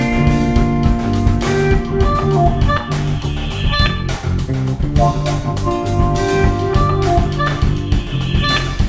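Guitar, electric bass and drum kit playing improvised music together. Ringing guitar chords sound over a steady bass line, with frequent drum and cymbal hits.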